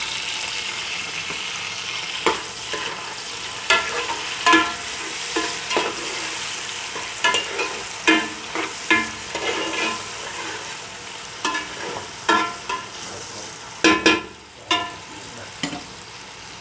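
Onions, garlic and freshly added tomatoes sizzling in hot oil in a pot while being stirred, the spoon striking the pot in repeated ringing clinks. The sizzle becomes quieter about fourteen seconds in.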